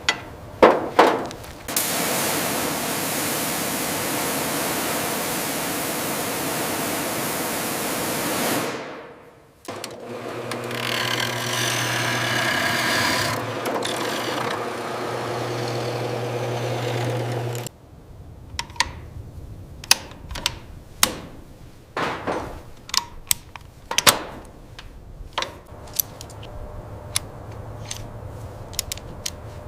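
A power tool or small motor runs steadily for several seconds and winds down. A second motor runs with a low hum and cuts off suddenly. Scattered sharp clicks and taps follow, like hand tools on metal parts.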